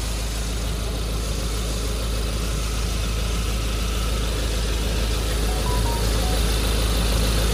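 Mazda BT-50's 2.2-litre Ford four-cylinder turbodiesel idling steadily.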